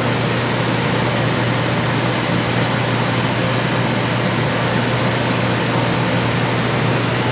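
Steady rush of ventilation and fan noise with a constant low hum, unchanging throughout; no separate mechanical movement stands out above it.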